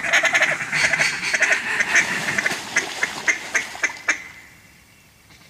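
Mallard duck call blown in a long, fast run of quacks, cut-down style calling to ducks overhead, slowing to a few spaced notes and stopping about four seconds in.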